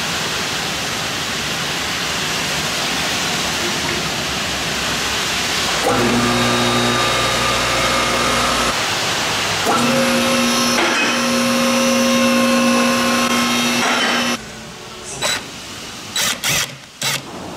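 A steady rushing hiss, then an automotive lift's electric hydraulic pump motor running with a steady hum in two spells as the truck is raised. Near the end, a power tool works the axle flange bolts in several short bursts.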